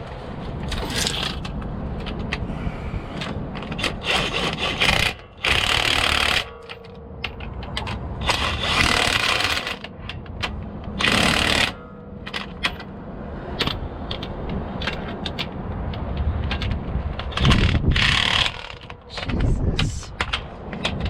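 Hand tools working on a truck's drive shaft bolts: metal scraping and clicking, with several louder scraping bursts each lasting about a second.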